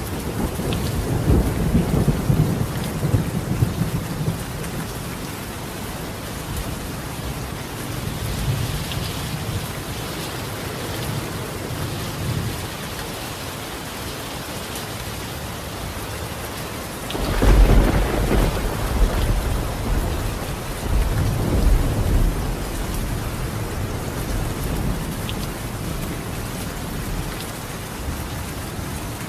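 Steady rain falling on a tiled roof, with low rolling thunder at the start and a louder thunderclap about two-thirds of the way through that rumbles on for a few seconds.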